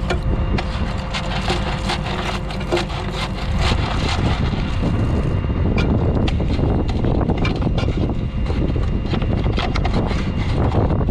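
Tractor engine idling steadily, with scattered clicks and knocks from hands working on the planter's mud-plugged seed tubes. Wind buffets the microphone from about four seconds in.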